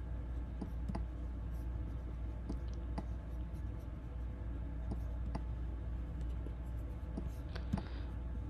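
Irregular computer mouse clicks, a dozen or so scattered unevenly, as the mouse paints with a brush tool, over a steady low hum.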